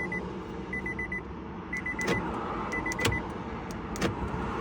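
A car's electronic warning chime, a quick run of four high beeps about once a second, repeating and stopping a little past three seconds in. A few sharp clicks sound under it and after it.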